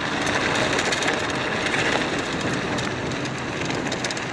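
Trek Marlin mountain bike rolling over a dirt-and-gravel trail: steady tyre noise with many small rattles and ticks from the bike, picked up by a handlebar-mounted GoPro under a foam windscreen.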